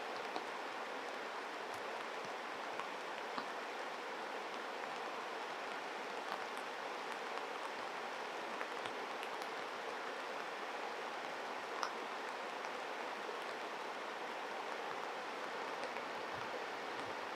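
Stream water rushing steadily, with a few faint short ticks scattered over it.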